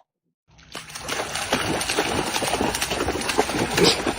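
Water splashing and sloshing in a rapid, irregular patter, loudest near the end.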